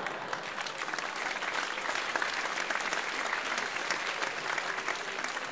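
Theatre audience applauding steadily, many hands clapping at once, at the end of a live comedy sketch.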